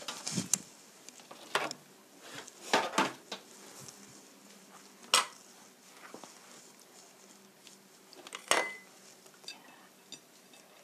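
Ceramic plates clinking and knocking as they are picked up, moved and set down on a hard tabletop, in a handful of separate sharp clinks; one clink near the end rings briefly.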